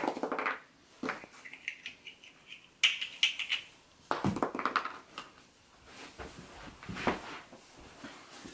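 A cat moving around inside a large cardboard box: claws scrabbling and scraping on the cardboard, with knocks and rustles that come in irregular bursts.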